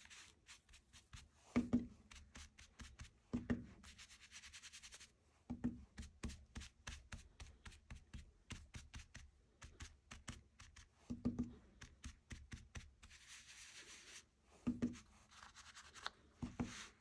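Quiet, rapid dabbing taps and brushing of an ink applicator on paper, shading its edges with ink, with short stretches of soft rubbing and a few soft knocks.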